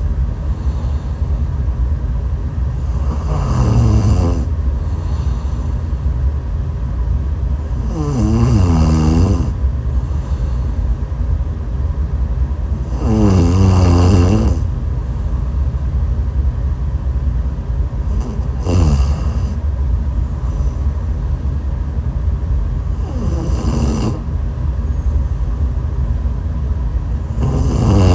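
A sleeping person snoring: six pitched, wavering snores about five seconds apart, over a steady low rumble.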